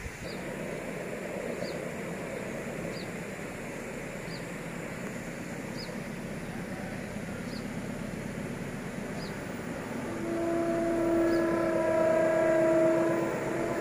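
Steady background noise with a faint high chirp about every second and a half; about ten seconds in, a diesel locomotive's horn starts a long, loud blast of several tones at once, broken briefly near the end, as the freight train approaches.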